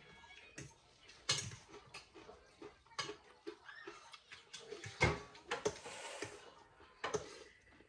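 Scattered clicks and knocks of utensils against bowls and dishes at irregular intervals, some ringing briefly.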